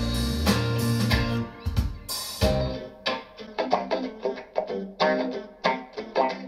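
Guitar-led music with drums played back through hi-fi bookshelf loudspeakers, Radiotehnika S-30 and then B&W 685 S2, in a speaker sound and bass test. A full, bass-heavy passage gives way about two seconds in to separate plucked guitar notes with much less bass.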